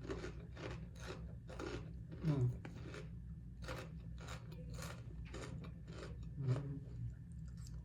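Close-up chewing of a crunchy salad with lettuce and croutons: crisp crunches about twice a second throughout.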